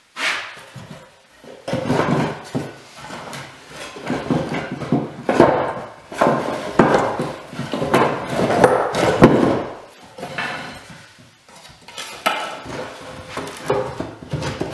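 Wooden boards of a collapsible sawhorse knocking and clattering against each other and the floor as the bundle is untied and its legs are pulled out and swung up, with irregular knocks and scrapes.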